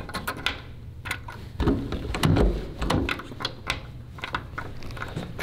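A metal key being worked in a hotel room door lock: a run of sharp clicks and rattles, with heavier knocks about two seconds in.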